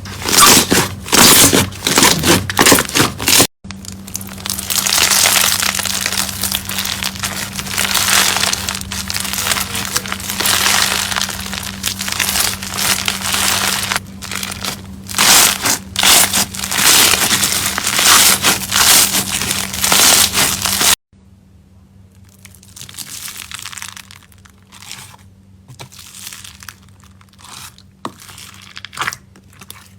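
Slime being squeezed and pressed by hand, giving dense crackling, popping and crunching. The sound is sharper strokes for the first few seconds, a thick continuous crackle until about two-thirds of the way in, then sparser, quieter crackles.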